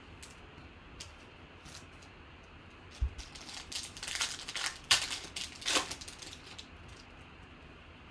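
Plastic wrapper of a Panini Contenders football card pack being torn open and crinkled, a cluster of sharp crackles loudest around the middle, after a soft knock about three seconds in.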